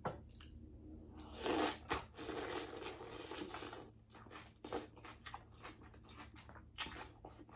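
Close-miked eating: a person chewing and crunching seafood boil, with scattered small clicks and a hissy stretch of mouth and handling noise.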